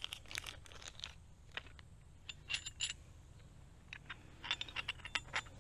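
Hands handling a flint-and-steel kit: a carbon-steel striker and a quartz stone clicking and clinking together in a string of small, sharp metallic taps, some with a brief ring.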